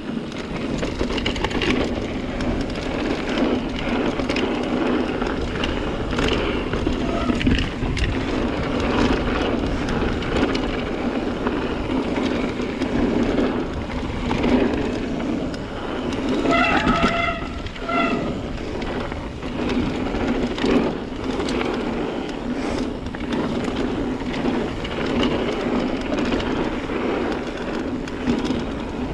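Ibis Ripley AF mountain bike descending a dirt flow trail: a steady rolling rumble of the tyres on packed dirt with constant rattling and knocking from the bike over the bumps. A short squeak repeats a few times a bit past halfway.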